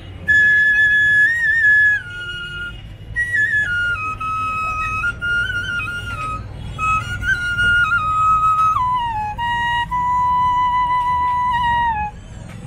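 Bansuri (side-blown bamboo flute) playing a slow solo melody. Long held notes with small ornamental turns step mostly downward in pitch, with brief breath pauses about three seconds in and near the end. A low rumble lies underneath.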